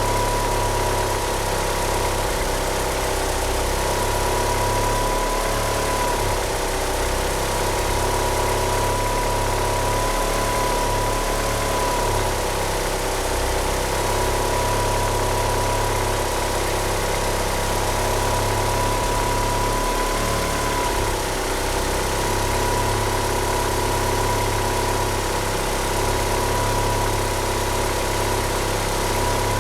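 1G Mitsubishi Eclipse GSX's turbocharged four-cylinder engine idling roughly on oversized 850cc injectors. Over it runs a steady high squeal from the slipping power steering pump belt, wavering slightly in pitch.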